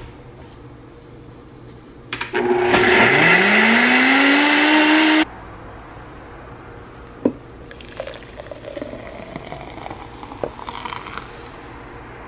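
A Nutribullet personal blender runs for about three seconds, blending a coffee and creamer drink. Its motor whine rises quickly in pitch as it spins up, holds, then cuts off abruptly. A few faint knocks and clicks of handling follow.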